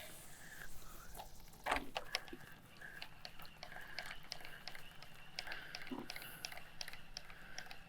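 Faint scattered clicks and small handling noises, with a soft knock about two seconds in and another near six seconds.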